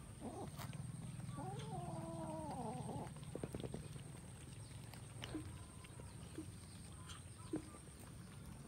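Cats crowded around a food bowl: one lets out a wavering, drawn-out yowl about a second and a half in. A few quick clicks follow, then a few short squeaks, all over a low steady rumble.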